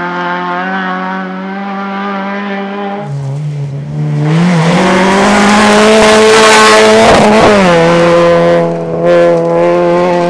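Peugeot 106 rally car's engine held at high revs on a gravel stage, with the crunch and spray of tyres on loose gravel growing loud as the car passes close by. The engine note drops in pitch as it goes past about seven seconds in, then settles back to a steady high-revving note.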